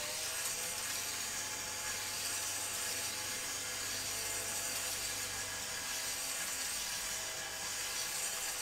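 Three-stone cylinder hone spun slowly by a power drill inside the oiled bore of a two-stroke Yamaha DT cylinder. The oiled stones make a steady grinding hiss against the bore wall, with a faint motor whine. It is a light hone to freshen the cross-hatch for a new piston.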